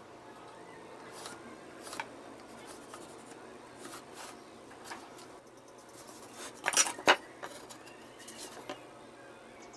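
A metal speed square and pencil handled on a wooden workbench, giving scattered light taps and clicks against the wood. About seven seconds in, a short clatter of sharp knocks, the loudest sound, as wooden boards are set down on the bench.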